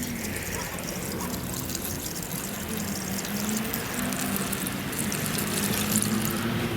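Motor oil pouring from a bottle into the engine's oil filler in a steady stream, trickling and glugging.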